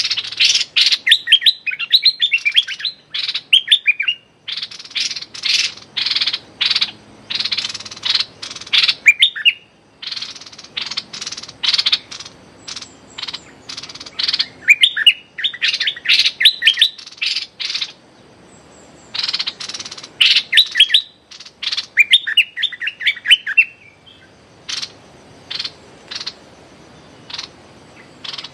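Caged bulbul giving fast chattering 'rik' calls: quick runs of short falling notes alternate with harsh clicking rattles, in repeated bouts with brief pauses. This is the aggressive scolding call a decoy male directs at a rival or captive bird.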